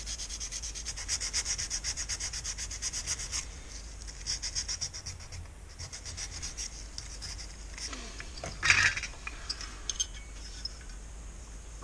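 Hands rubbing a small part of a Honda GX35 engine with quick, even back-and-forth scraping strokes, which stop about three and a half seconds in and return briefly a second later. About nine seconds in comes a loud clatter of metal engine parts being handled, followed by a few light clicks.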